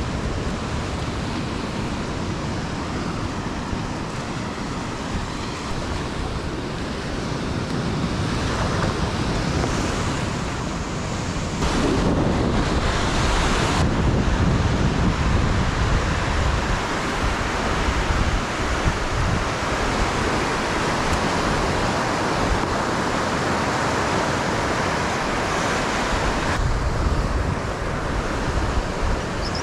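Ocean surf washing onto a beach, with wind buffeting the microphone; the surf grows louder a little before halfway through.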